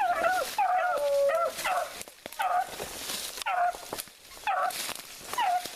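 Hunting beagles barking and yelping excitedly in a string of short, high calls.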